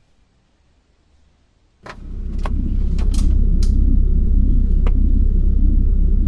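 Refrigerator door pulled open with a click about two seconds in, followed by several light clinks of items rattling. At the same moment a loud, low, rumbling drone sets in and holds steady.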